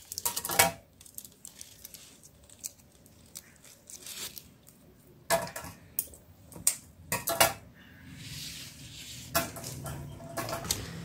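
Scattered sharp clicks and taps as flower stems and a desk tape dispenser are handled on a marble countertop, with a short rasp about eight seconds in.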